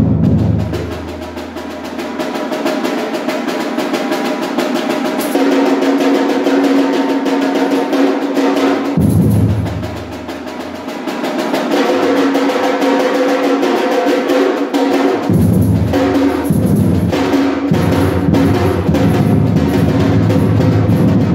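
Carnival drum troupe playing a fast, driving rhythm on snare-type drums with rolls. Deeper bass-drum beats come in about nine seconds in, drop out, and return from about fifteen seconds.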